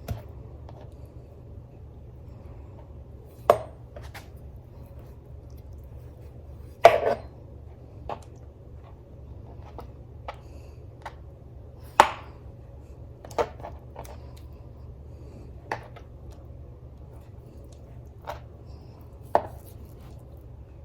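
Kitchen knife cutting partly frozen chicken breast on a cutting board: irregular single knocks of the blade striking the board, one every second or few seconds, over a low steady hum.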